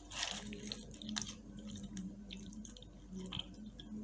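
Soaked tamarind pulp being squeezed and pressed by hand against a stainless steel mesh strainer: irregular wet squelches with drips of liquid into the bowl below, over a faint steady low hum.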